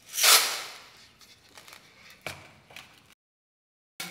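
Metal laboratory test sieves being handled: a short scraping rush in the first second that fades away, then a couple of light metal taps. The sound cuts out completely for nearly a second near the end.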